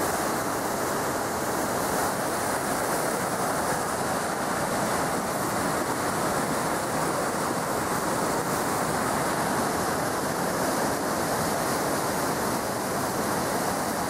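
Mountain stream rushing over rocks and small falls: a steady, unbroken noise of white water.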